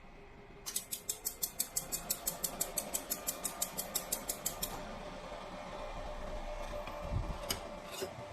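QCW fiber laser jewelry welder firing a rapid run of pulses, a train of sharp clicks about seven a second for some four seconds, starting just under a second in. Two single pulse clicks follow near the end over a low steady hum.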